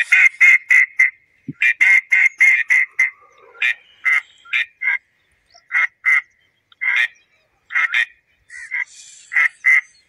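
Duck calls: two quick runs of short nasal quacks near the start, then single quacks every half second to a second.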